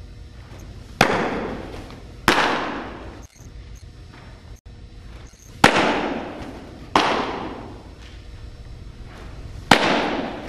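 Baseball smacking into a catcher's mitt, followed about a second later by a second sharp smack as his throw lands at the far end. This happens twice, and a third catch comes near the end. Each crack echoes loudly in the hard-walled indoor hall.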